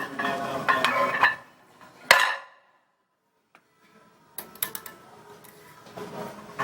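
Metal gym weights clanking: one loud clank about two seconds in, then a rapid run of light metallic clinks from about four and a half seconds, with some background voices early on.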